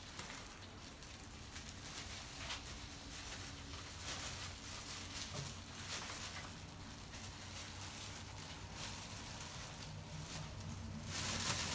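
Olive-oil spread sizzling in a hot frying pan, a steady crackling hiss, with the plastic bread bag rustling as it is opened, loudest near the end.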